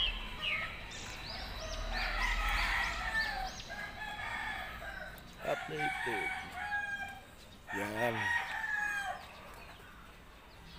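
A rooster crowing several times, with chickens clucking.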